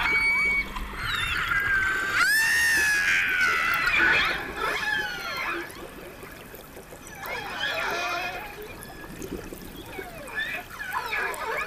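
Killer whales calling underwater: overlapping whistles and squealing calls that slide up and down in pitch, coming in several bursts, loudest in the first few seconds, over a faint wash of water noise.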